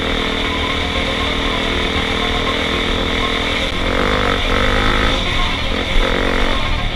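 Honda CRF250L's 250 cc single-cylinder four-stroke engine running steadily under way, then revs rising and falling repeatedly from about four seconds in.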